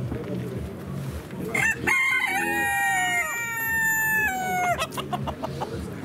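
A rooster crowing once: one long call of about three seconds that starts about a second and a half in and drops away at the end.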